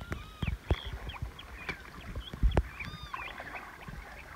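Several birds calling with short arched chirps, over water sloshing around a man wading with a cast net. Low thumps come and go, the loudest right at the start and about two and a half seconds in.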